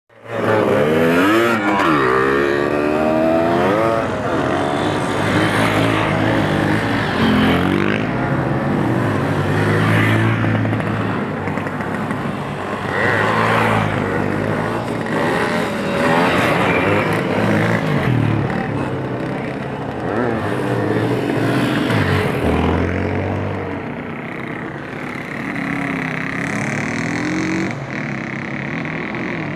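Several motorcycle engines running and revving: the pitch climbs and falls again and again as the bikes accelerate and ease off, with a steady engine hum underneath.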